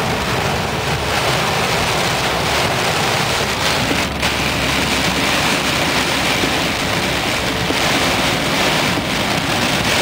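Heavy downpour on a car's roof and windshield, heard from inside the cabin while driving: a loud, steady rushing hiss.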